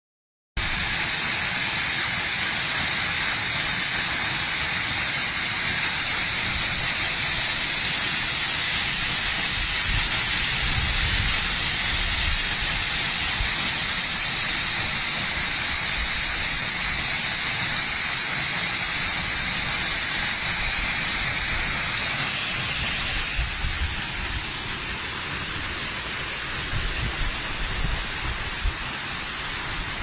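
Waterfall: a steady rush of water falling onto rock and splashing into a pool. About three-quarters of the way through the rush becomes quieter and duller, with a few low irregular rumbles.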